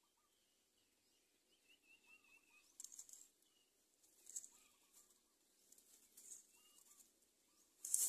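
Faint rustling and brief wing flaps of a greater coucal moving at its nest of dry leaves, in a few short bursts, the loudest near the end as it leaves. Faint short bird calls repeat in the background.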